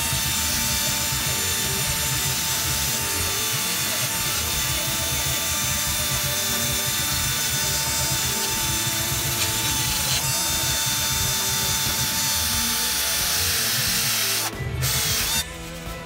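Cordless drill spinning a wire cup brush against a rusty steel saw base plate, a steady whine under a dense scrubbing hiss as the bristles strip the rust. It stops near the end after a short final burst.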